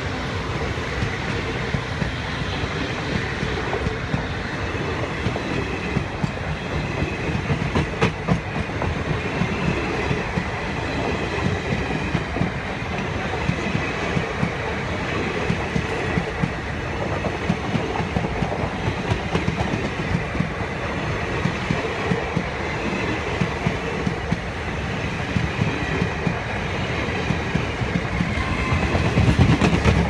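Passenger train coaches rolling past at speed: a steady rumble, with the wheels clattering over the rails.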